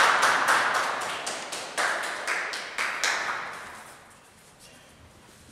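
A quick run of sharp smacks, about three to four a second, at a live wrestling event. The louder ones set off bursts of crowd noise in the hall, and everything dies away about four seconds in.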